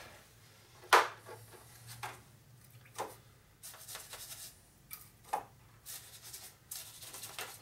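Metal clicks and knocks of a cylinder hone being handled in the bore of a Ford four-cylinder flathead engine block, with a few short rubbing noises. The sharpest knock comes about a second in.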